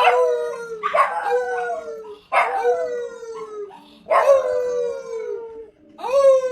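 A dog howling five times in a row. Each howl rises sharply and then slides down in pitch over a second or so.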